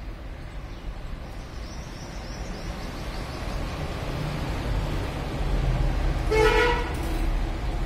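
Street traffic rumbling, growing louder toward the middle, with a vehicle horn honking once, for about half a second, some six and a half seconds in.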